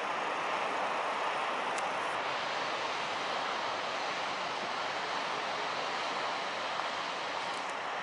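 Steady roar of heavy ocean surf, an even wash of noise with no engine note or voice standing out.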